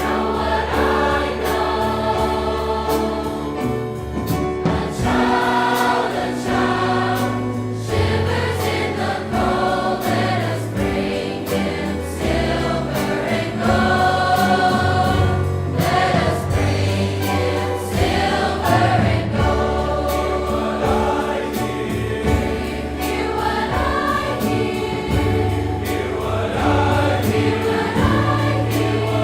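High school choir singing with instrumental accompaniment, steady bass notes underneath.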